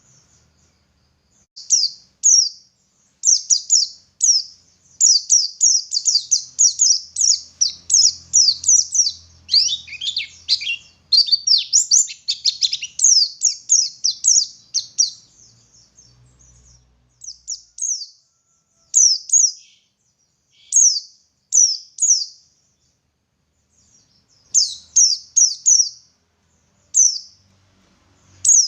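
A white-eye (pleci) singing long, fast runs of high, thin chirping notes, dense and near-continuous through the first half, then broken into short phrases with pauses between them.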